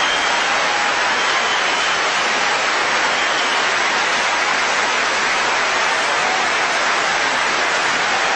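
Steady, even hiss of noise.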